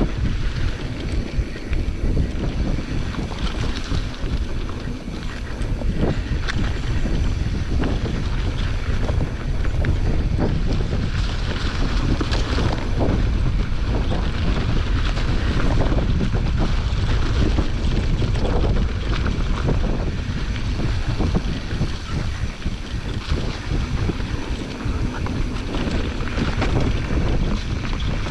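Wind buffeting the microphone during a fast mountain-bike descent, with tyres rumbling over dirt and frequent clatter from the bike over bumps.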